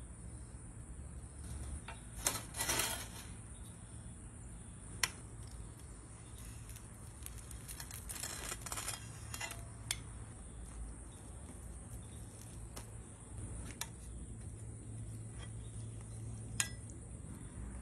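Metal tongs and a spatula clicking, clinking and scraping while handling food on a cutting board, in scattered sharp clicks with a couple of short scraping runs. A steady high cricket drone runs behind.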